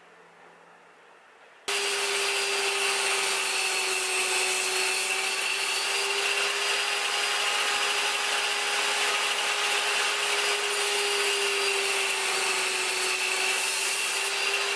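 Table saw that cuts in abruptly about two seconds in, then runs steadily with a steady whine as its blade cuts slowly through a mitred hardwood corner pushed across on a sled.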